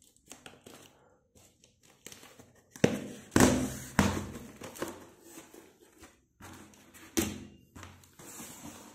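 A book parcel being handled and opened: irregular thuds, knocks and scraping of the packaging, loudest about three to four seconds in and again about seven seconds in.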